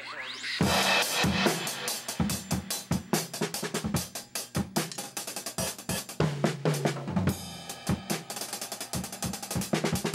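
Drum kit played live in a fast, busy pattern of snare, bass drum, hi-hat and cymbal hits, starting about half a second in.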